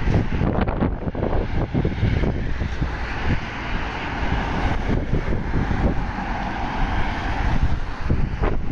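Wind buffeting the phone's microphone over road traffic. A car passes close by, its tyre noise swelling from a few seconds in and fading near the end.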